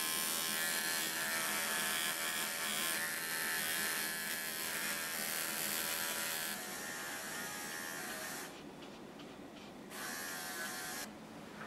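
Electric pet clipper buzzing steadily as it trims the fur on a Pomeranian's paw pads, then cutting off about eight seconds in.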